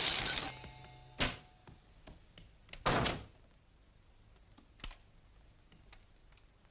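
Household knocks and thumps as a kitchen cupboard door and things in it are handled. There is a sharp knock about a second in, a louder, scraping thump about three seconds in, and a light click a little later.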